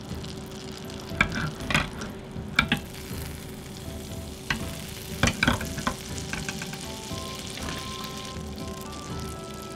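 Butter melting and sizzling in a non-stick frying pan over low heat, a steady frying hiss. A few sharp clicks stand out in the first six seconds.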